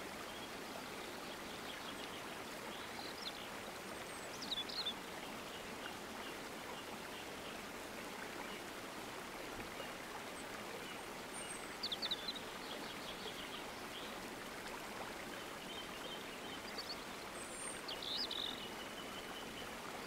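Birds chirping a few times, the clearest calls about a quarter of the way in, a little past halfway and near the end, over a steady even rushing noise like running water.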